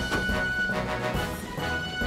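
Background music score with held notes over a steady low line.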